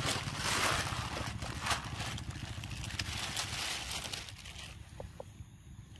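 Macaque biting and tearing at a ripe mango: scraping, rustling noise with a few sharp clicks, loudest in the first couple of seconds and dying down after about four and a half seconds, over a low steady rumble.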